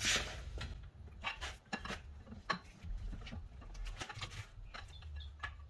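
Scattered light metallic clinks and taps at irregular intervals, from tools and metal parts being handled while a fuel tank is lowered slightly under a vehicle.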